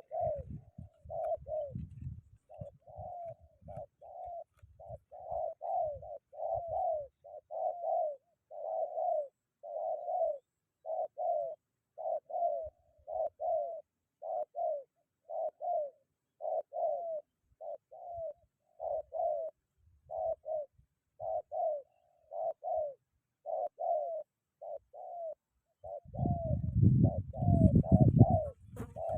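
Spotted dove cooing over and over in short runs of two or three notes. Wind buffeting the microphone rumbles briefly at the start and loudly near the end.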